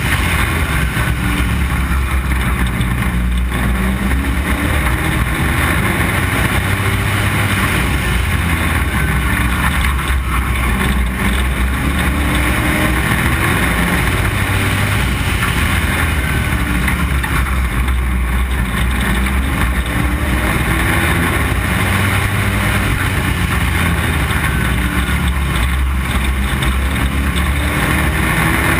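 Street stock race car's engine at racing speed, heard from on board: a loud, continuous run whose pitch climbs again and again as the car accelerates out of the turns.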